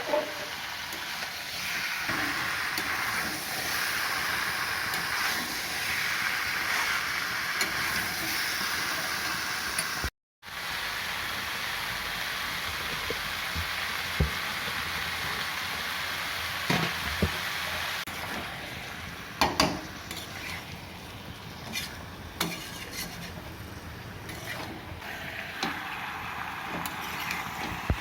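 Chicken pieces sizzling and frying in a karahi while a spatula stirs them, scraping and clinking against the metal pan now and then. The sound drops out briefly about ten seconds in, and the sizzle is quieter in the second half.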